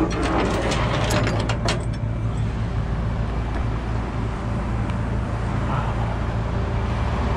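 Rollback tow truck's engine idling steadily, a low hum, with road traffic passing. A few sharp clicks come in the first two seconds.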